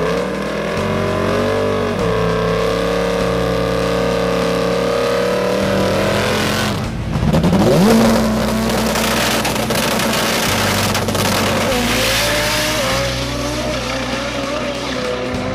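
Drag race car engines at high revs. One car's engine holds a steady high pitch for several seconds. After a short break, a second, turbocharged drag car launches with a sharp rising rev about seven seconds in, the loudest moment, and keeps running as it pulls away down the strip.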